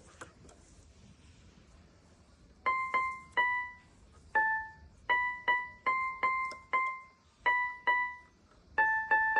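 Electronic keyboard keys pressed one at a time by a green-cheeked conure, giving about a dozen single notes at an uneven pace. The notes start about two and a half seconds in and mostly repeat the same one or two pitches.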